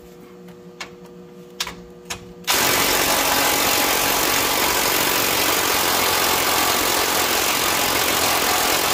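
A few light clicks, then about two and a half seconds in a DeWalt cordless impact wrench starts hammering steadily on a rusted sway bar end link nut, breaking it loose.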